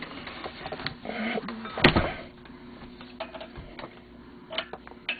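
Engine parts and tools being handled during reassembly: scattered light clicks and clinks, with one sharp knock about two seconds in, over a faint steady hum.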